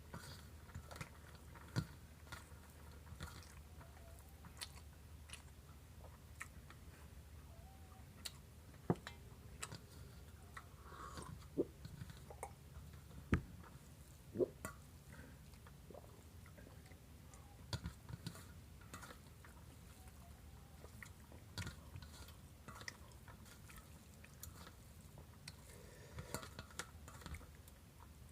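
A person chewing and eating a meal of rice with cauliflower and fried egg: faint, irregular mouth clicks and smacks, with a few sharper ones.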